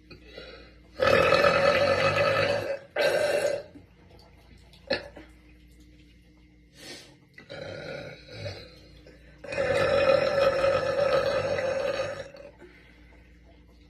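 A woman burping loudly: a long burp starting about a second in, a short one right after it, and a second long burp of nearly three seconds near the end, with softer sounds in between.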